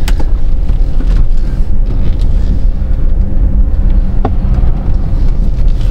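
Chevrolet Colorado pickup heard from inside the cab as it drives off: a steady, loud, low engine and road rumble, with a faint steady hum and a couple of light clicks.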